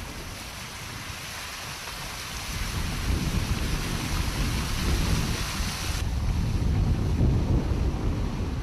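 Wind buffeting the microphone over a steady rushing hiss of outdoor weather or water noise. Low rumbling gusts grow louder from about three seconds in, and the high hiss drops off abruptly about six seconds in.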